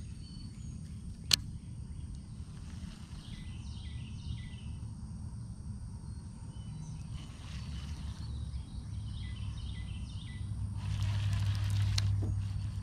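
Outdoor riverside ambience: birds calling in short clusters of quick chirps over a steady low rumble. A single sharp click comes about a second in, and a brief rush of noise near the end.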